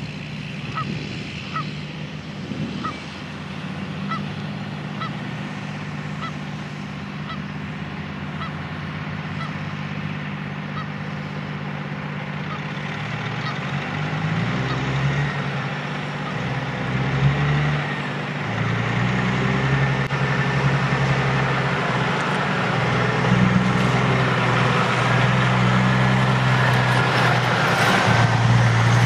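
A flock of geese honking in a steady series of short calls that fade away over the first half. A heavy diesel engine then grows louder, its pitch shifting up and down.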